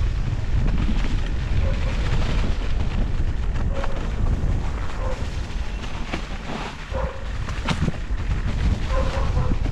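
Wind buffeting the microphone with a steady low rumble, broken by scattered clicks and knocks from an electric mountain bike rolling over a rough trail.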